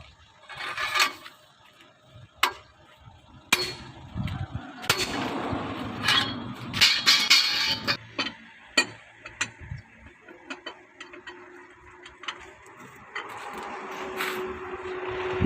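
Sharp metallic strikes and clinks of steel tools on a truck's wheel nuts as the inner nuts of the rear dual wheel are tightened. A steady motor hum builds toward the end.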